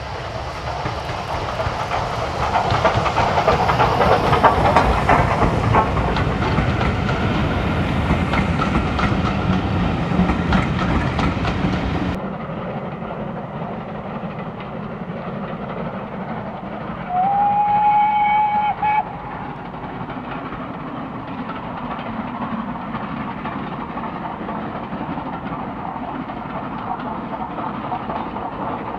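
Steam locomotive 925 Cheltenham, a Southern Railway Schools class 4-4-0, working a passenger train past at close range, its exhaust and the coaches' wheels clattering loudly. After a sudden change to a distant view, the train is heard running far off and sounds one steady whistle lasting a little under two seconds.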